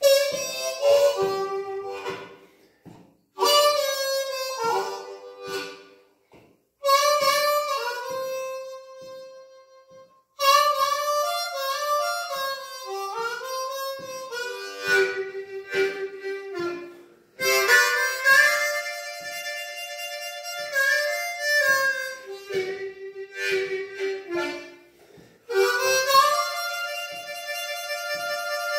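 Solo harmonica playing blues, cupped in both hands, in phrases a few seconds long with short pauses between them and some notes bending in pitch.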